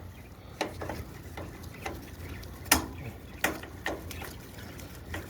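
Irregular light clicks and knocks, about eight of them, with one sharper knock about halfway through, from screws and a hand tool being handled while fastening screws back into a washing machine's cabinet.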